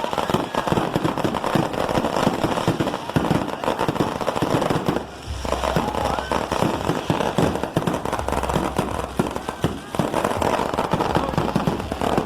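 Traditional aerial fireworks going off in a dense, irregular barrage of bangs and crackles, many each second, with a brief lull about five seconds in. These are loud exploding shells, not silent display fireworks.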